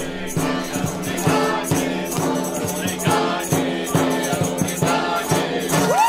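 Folk tavern music: several voices singing together over a plucked string instrument and a hand drum keeping a steady beat of about two and a half hits a second.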